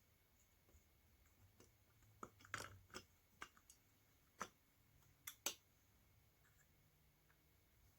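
A scatter of light clicks and taps, about ten, bunched in the middle of the stretch, from small metal parts and screws being handled while a vacuum cleaner motor is reassembled; otherwise near silence.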